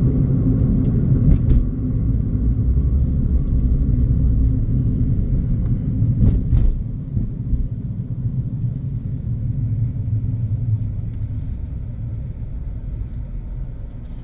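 Road and engine rumble of a car, heard from inside the cabin while driving, with a few faint clicks. The rumble drops in level about halfway through and keeps easing lower.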